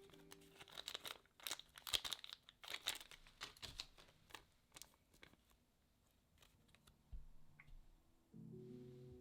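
Packaging crinkling and tearing as it is opened: a quick run of sharp crackles for the first few seconds, then sparser rustles. Background music comes back in near the end.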